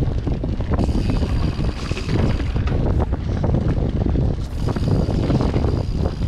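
Orbea Oiz mountain bike descending a rocky dirt trail at speed: steady wind rushing over the microphone, mixed with the rumble and irregular rattling of the tyres and bike over stones.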